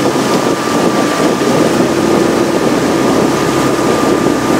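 Outboard motor of a coaching launch running steadily at cruising speed, with a constant high whine over the engine noise.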